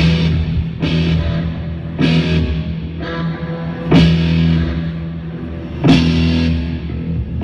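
Rock music with electric guitar and drums: heavy chords struck every second or two, each left ringing over a sustained low note.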